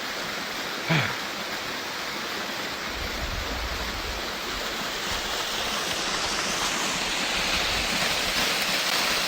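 Mountain waterfall rushing: a steady, even hiss of falling water that grows louder toward the end. A short voice sound about a second in.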